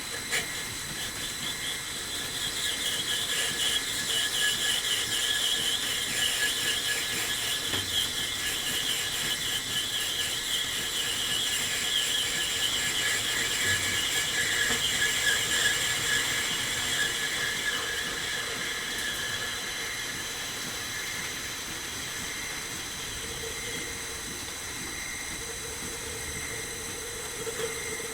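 Metal lathe cutting with a ball-turning attachment: the tool scrapes the workpiece with a high, scratchy squeal over a steady high whine from the machine. The squeal builds over the first few seconds and fades out at about two-thirds of the way through, leaving the whine.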